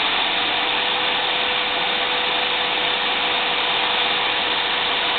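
Corded 6-amp electric hand drill driving a homemade wood lathe, running at a steady speed: an even rushing motor noise with a steady whine.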